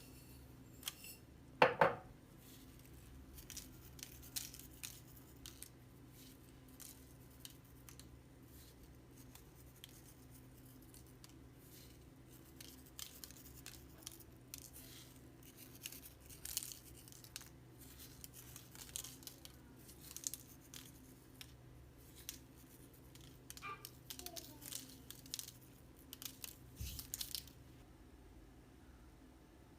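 Scattered small rustles and clicks, like objects being handled, with one sharp knock about two seconds in, over a faint steady hum.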